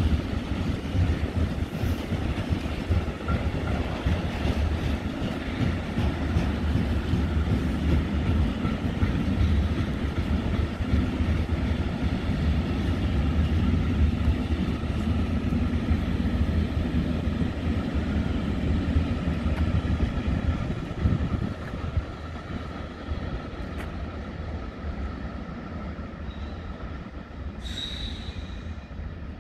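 Freight train rolling past at close range: a steady low rumble of wagon wheels on the rails, with a faint high wheel squeal running through it. The rumble drops off about twenty seconds in as the end of the train goes by, and a brief high squeal comes near the end.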